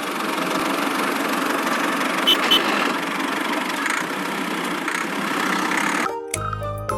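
Small motor of a miniature DIY bulldozer running steadily, a dense buzzing mechanical noise, with two short high chirps about two seconds in. The motor sound stops abruptly near the end as music begins.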